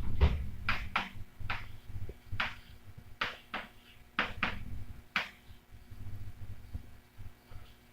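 Pen writing by hand, with a series of short, irregular scratching strokes.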